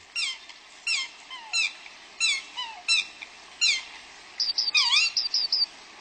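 Bird chirping: a short call falling in pitch repeats about every 0.7 seconds, then near the end comes a quick run of high chirps. A steady hiss lies underneath.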